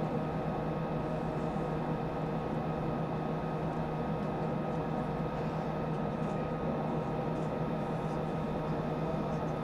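Steady drone and rushing hiss inside the Soyuz MS-09 capsule while its third stage burns, with a few fixed steady tones running through it and no change in level.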